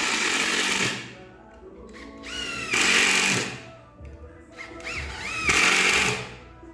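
Electric drill-driver run three times, each run about a second long, with its motor whine rising in pitch as it drives screws into MDF panels.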